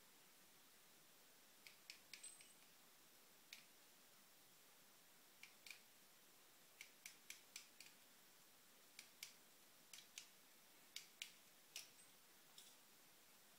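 Faint, irregular small metallic clicks and ticks, about twenty of them, from a hand tool working inside a CNC router spindle's bearing housing clamped in a bench vise.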